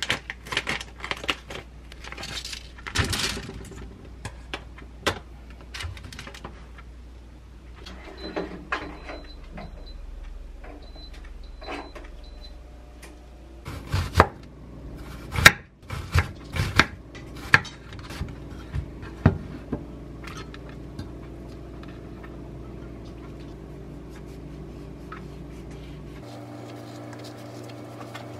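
Kitchen food-prep sounds: crinkling plastic packaging and light clicks against a metal air-fryer basket, then a chef's knife chopping an onion on a wooden cutting board in a run of sharp knocks, the loudest sounds. A few faint high beeps come about a third of the way in, and a steady low hum runs through the last part.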